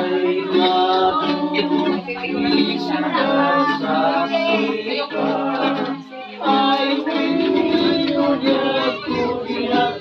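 Voices singing a song together to a strummed acoustic guitar and ukulele, with a short break in the singing about six seconds in.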